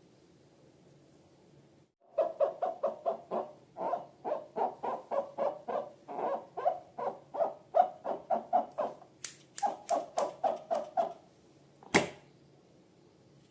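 A fast run of short, squeaky pitched pulses, about five a second, lasting some nine seconds, followed by a single sharp snap near the end.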